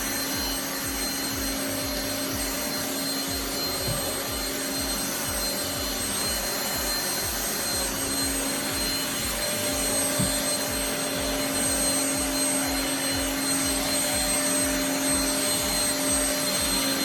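Deerma VC811 cordless handheld vacuum cleaner running with a steady whine as it sucks up lovebird feathers.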